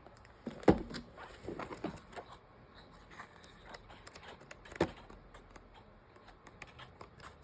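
Sheets of scrapbook paper being handled and sorted, rustling with light clicks and two sharp knocks, the loudest a little under a second in and another about five seconds in.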